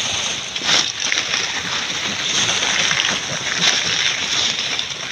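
Pigs rooting and pushing through wet, matted water-hyacinth: a steady wet rustling and splashing, with irregular crackles from the dry leaves.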